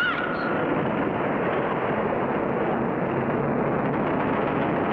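Sound effect of a rock wall collapsing: a loud, steady rumble of crashing stone.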